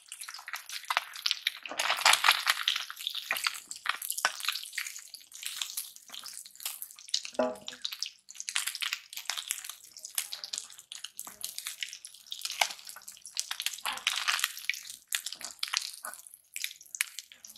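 Fried fish sizzling and crackling in hot oil in a wok as it is lifted out, with a metal ladle scraping and clinking against the pan.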